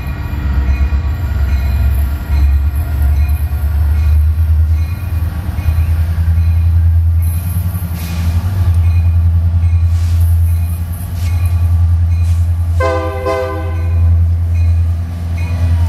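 A Union Pacific maintenance-of-way rail train rolling past with a steady, loud low rumble. Near the end a locomotive horn sounds briefly.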